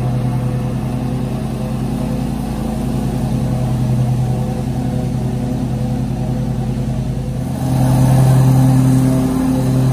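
Ferris FW35 hydrostatic walk-behind mower, Kawasaki engine running steadily as it cuts grass. It gets louder about three-quarters of the way through as the mower turns and comes back closer.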